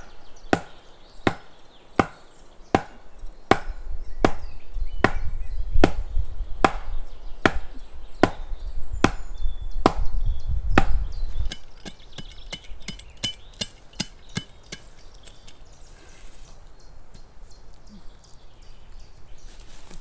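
Wood being chopped with a blade in steady, even blows, about fourteen strokes a little over one a second, with a low rumble under the middle blows. Past the halfway point the blows stop and give way to lighter, quicker taps.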